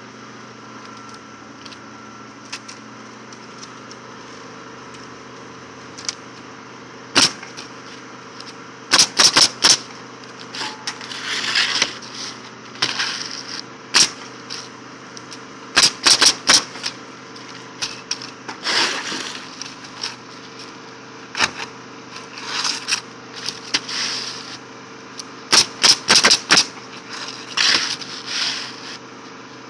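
Pneumatic roofing nail gun driving nails into asphalt shingles, firing in quick bursts of three to five shots a few seconds apart, with single shots here and there and short rushes of noise between the bursts.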